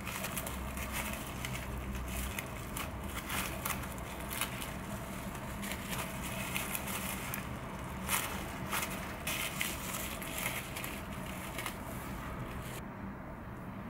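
Bamboo sushi rolling mat wrapped in plastic wrap, crinkling and crackling as it is pressed and rolled around a rice-and-nori roll. It makes a dense run of small crackles and clicks that stops near the end.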